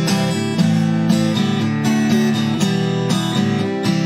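Acoustic guitar strummed steadily through a run of chords, with no singing.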